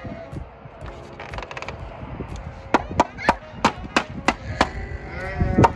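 Hammer driving a nail into a wooden fence board: seven quick, sharp blows at about three a second, starting about three seconds in.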